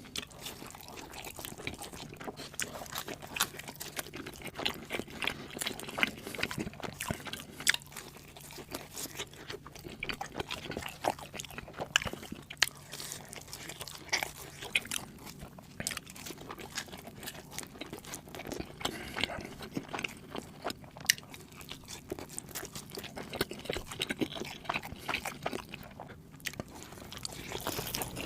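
Close-miked eating sounds: pizza being bitten and chewed, with crust crunching and a steady run of wet mouth clicks and smacks.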